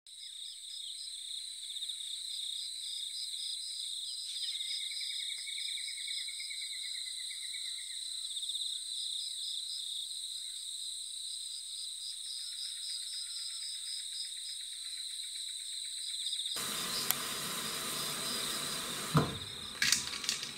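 Insects chirping in a steady, high-pitched pulsing trill, with a second, lower chirping call joining for a few seconds. About three-quarters of the way through, a louder hiss comes in, and near the end there are knocks and splashes as a fish is handled in a metal bowl of water.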